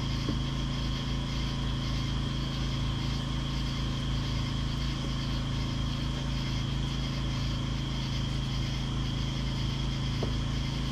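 A motor running steadily: a constant low hum with a faint high whine above it, unchanging throughout.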